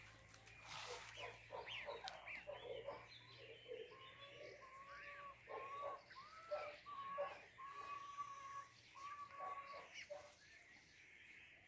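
Faint peeping of a small flock of goslings: many short, high calls that overlap, some held level and some sliding up or down in pitch.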